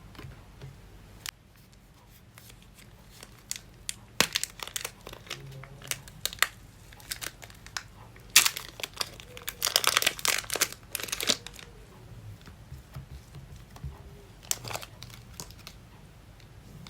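Slime being squished and stretched by hand, with bursts of sticky crackling and popping that are busiest a little past the middle.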